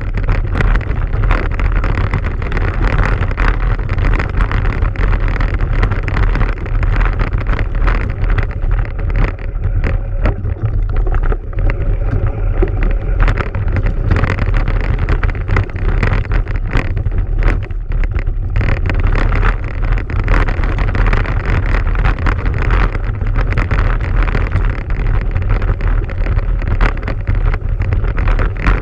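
Steady rumble and wind rush on the microphone of an off-road vehicle riding fast over a stony dirt track, with no clear breaks.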